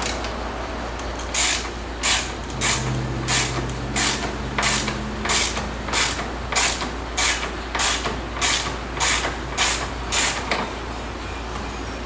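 Hand ratchet clicking through about fifteen quick back-strokes at an even rhythm of under two a second, undoing the fasteners of a car's door latch.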